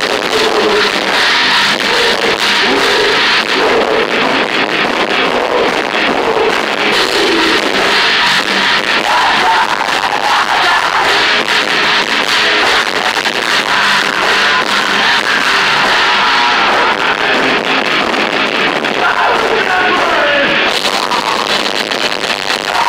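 Heavy metal band playing live and loud: electric guitar, a drum kit with many sharp hits, and a vocalist singing into a microphone.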